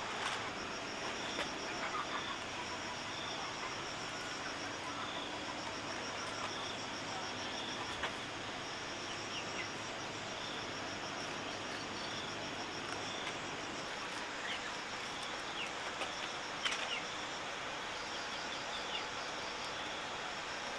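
Outdoor ambience of insects trilling: a fast, pulsing high trill that comes and goes every few seconds over a steady background hiss, with a regular short high chirp about once a second, a few faint bird chirps and a couple of faint knocks.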